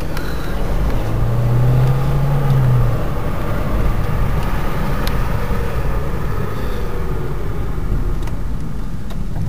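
Car engine and road rumble heard from inside the cabin while driving. A low engine hum is strongest from about one to three seconds in.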